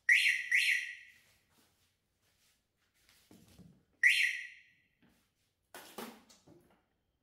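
Scooter anti-theft alarm chirping: two quick chirps about half a second apart, then a single chirp about four seconds in. A short knock near the end.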